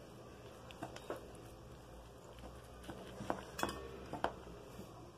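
Knife and fork clinking and scraping against a metal baking pan while a baked dish is cut. A few faint scattered clicks, the loudest a little after three and a half seconds.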